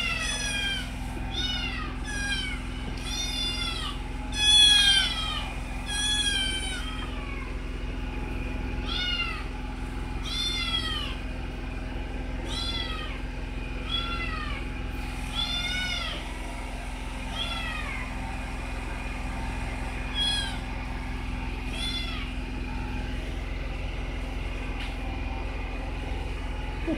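Kitten meowing over and over in high, arching cries that rise and fall, close together at first and then further apart, stopping a few seconds before the end. A steady low hum runs underneath.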